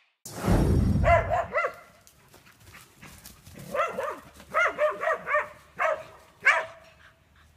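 A dog barking repeatedly: about nine short barks, some in quick runs, each rising and falling in pitch. A loud low rumble comes at the very start, before the first barks.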